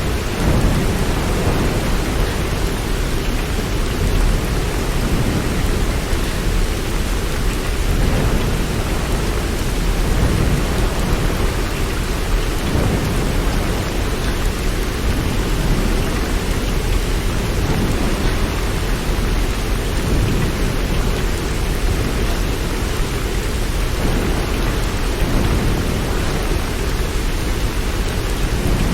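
Steady rain with a deep, continuous low rumble beneath it and no distinct single crack or clap.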